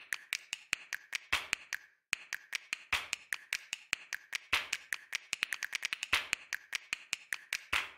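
Sharp, dry percussive clicks in a quick rhythm, about six a second, with a short break about two seconds in. They are the sparse, beatless part of an electronic music soundtrack.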